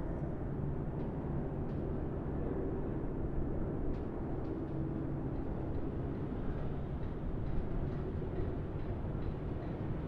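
Waterfall: a steady, low rushing roar of falling water.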